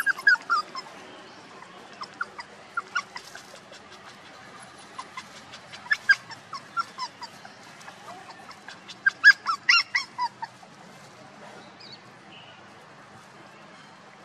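Puppies yipping and whining in short, high, squeaky calls that come in little runs, with the last and loudest run about nine to ten seconds in, then stopping.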